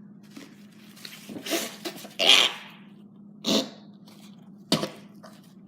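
A boy eating a piece of dry dog food and reacting to its taste: a few short, noisy gagging sounds, the loudest a little over two seconds in, and a sharp crunch near the end.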